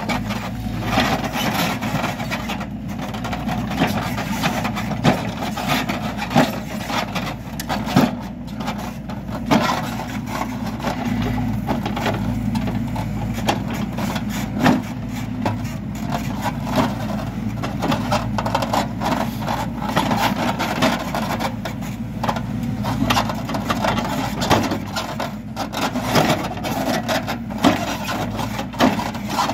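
Hidromek backhoe loader's diesel engine running steadily while it works fill material, with frequent irregular knocks and clatter from the bucket and earth.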